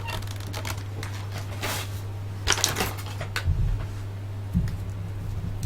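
Crumpled action-figure packaging handled by hand: a few brief rustles and clicks of card and plastic, over a steady low electrical hum.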